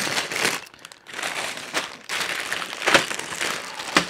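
Clear plastic bags full of LEGO bricks crinkling as they are picked up and shuffled around, in irregular rustles, loudest briefly about three seconds in.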